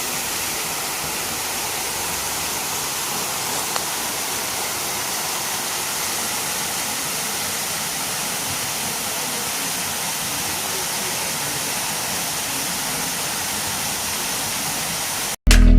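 Waterfall rushing: a steady, even wash of falling water. It cuts off abruptly near the end, where loud guitar music starts.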